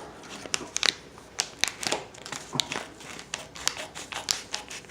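Packaging of a wooden birdhouse craft kit crinkling, with many irregular clicks and taps as it is handled and opened.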